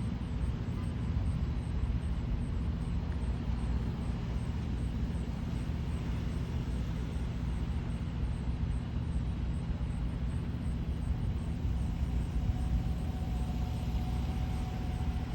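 Steady low rumble of an Airbus A321neo's jet engines on approach, with a faint steady whine coming in about three quarters of the way through.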